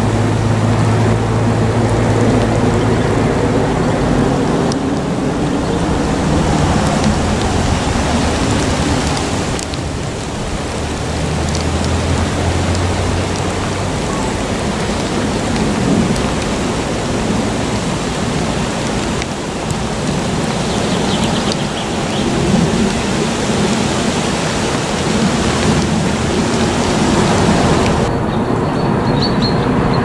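Steady rush of wind and blown snow on the microphone in a snowstorm, swelling and easing in gusts, with a low steady hum underneath. About two seconds before the end the hiss cuts out abruptly.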